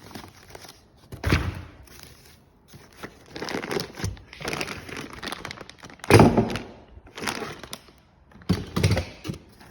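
Handling noise: a string of thuds and knocks with rustling between them, the loudest knock about six seconds in.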